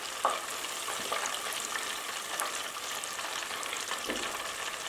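Chicken wings deep-frying in hot oil in a stainless steel pressure-cooker pot, a steady crackling sizzle. Metal tongs stirring the wings clink against the pot about a quarter second in and again near the end.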